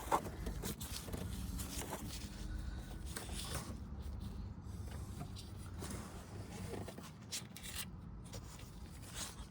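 Faint clicks and scrapes of hands and a small tool working a coolant hose loose from a car's transmission oil cooler, over a low steady hum.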